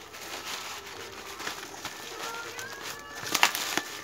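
Black plastic mailer bag and cardboard rustling as the package is pulled open by hand, with two sharp crackles about three and a half seconds in. Faint high gliding tones sit in the background.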